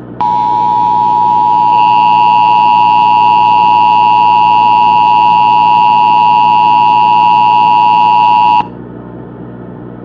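Emergency Alert System attention signal: a steady two-tone alert tone (853 and 960 Hz), one tone sounding first and the second joining a couple of seconds in, then cutting off suddenly about three-quarters of the way through, leaving a low hum. It is the alarm that marks an emergency alert broadcast.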